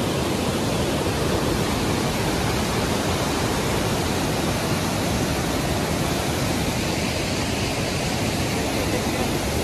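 Steady rush of a mountain stream's white water and waterfall tumbling over rocks.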